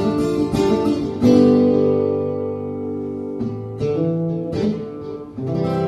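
Acoustic guitar strumming chords. Quick strumming for about the first second, then a handful of single chords, each strummed and left to ring out, closing the song.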